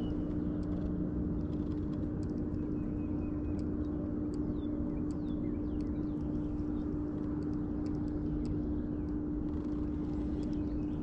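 Steady electric hum with one constant tone over a low rumble, typical of a bass boat's bow-mounted trolling motor holding position. Faint short high chirps of small birds sound now and then over it.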